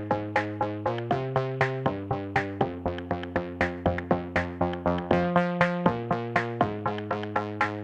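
Background electronic music: quick, evenly spaced synth notes, about four a second, fading fast after each strike, over chords that change about once a second.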